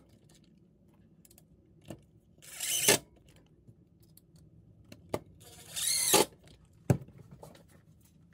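Cordless impact driver run in two short bursts, each building to a sharp finish as a screw is driven home into the motor's gearbox cover, with a few sharp clicks and knocks of screws and the tool being handled between.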